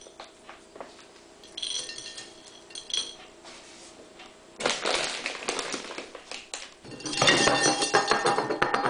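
A ceramic plate clinking a few times, then the dry rustling and crackling of a rabbit's pellet-and-seed food mix being sorted through by hand on the plate, loudest near the end.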